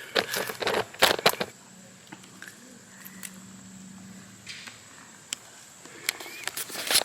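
Crunching footsteps and scuffs on a trail of loose dirt and pine needles, in clusters in the first second and a half and again near the end, quieter in between.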